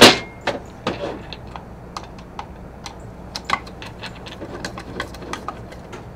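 A sharp metallic clack, then light, irregular clicks and ticks as a hand wrench tightens nuts onto the quarter-20 screws holding a bracket to a Toughbox gearbox.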